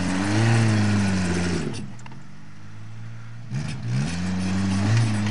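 Suzuki Samurai 4x4's engine revving hard under load as it strains to climb out of a steep muddy ditch: a burst held high that drops back to idle about two seconds in, then a second rise in revs a second and a half later.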